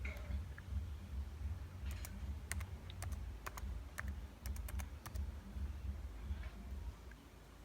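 Scattered light clicks of typing on a laptop keyboard, a dozen or so taps bunched between about two and five seconds in, over a steady low hum.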